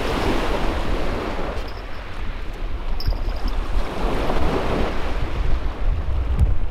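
Small waves breaking and washing over a shingle beach, rising and easing, with a steady low rumble of wind on the microphone.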